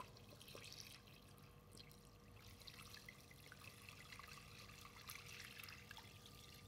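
Chicken stock being poured in a steady stream from a jug into a stockpot of chicken pieces and liquid: a faint, even splashing trickle.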